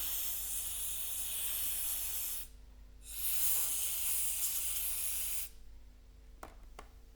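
Aerosol spray can hissing in two long bursts of about two and a half seconds each, with a short pause between them.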